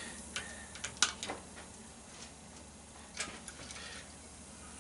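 Sharp clicks and snips from hand wire cutters working small wires off a CRT monitor's circuit board. They come in two small clusters, the loudest about a second in and another group just past three seconds, over a faint steady hum.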